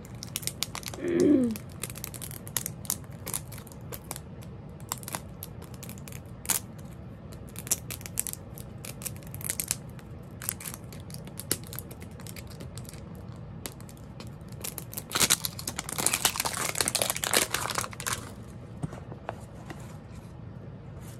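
Plastic wrapper of an LOL Surprise SOO Mini toy ball crinkling and tearing as it is peeled off by hand, with scattered crackles throughout and a denser stretch of crinkling past the middle.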